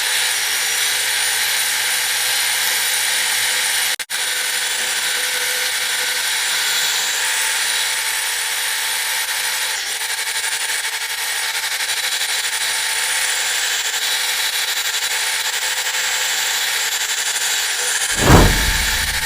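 Hand-held power tool running steadily as it strips the damaged area of a steel car door back to bare metal, with a high whine over a hiss. A brief break about four seconds in, and a heavy thump near the end.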